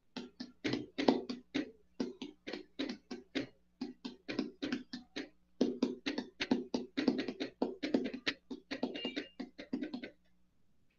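Quick run of taps or knocks, about four or five a second with a few short gaps, over a low steady hum; it starts and stops abruptly.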